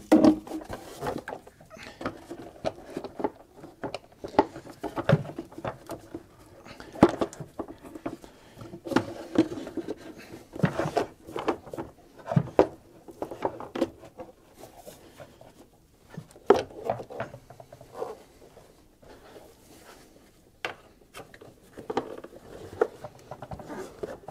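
Irregular clicks, knocks and plastic rattles of hands working a plastic engine cover loose from its mounts in an Audi A3 engine bay.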